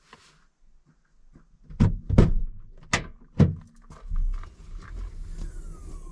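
Four heavy knocks in two quick pairs, followed by a low, uneven rumble.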